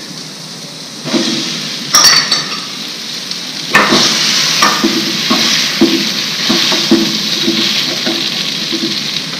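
Hot oil sizzling in a frying pan as mashed boiled potatoes go into a tempering of green chillies and curry leaves, the sizzle rising about a second in. A steel spoon knocks sharply against the pan three times and then taps and scrapes it lightly and repeatedly.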